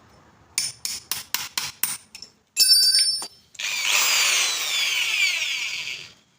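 Power drill boring a larger hole into a golf ball: a quick run of clicks, a short burst of the motor about two and a half seconds in, then the drill runs for about two and a half seconds with its pitch sliding as the bit cuts, stopping shortly before the end.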